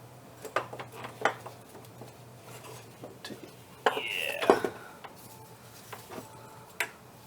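Metallic clinks and knocks from an engine's water pump and parts being handled during removal and replacement. There is a short falling squeak about four seconds in.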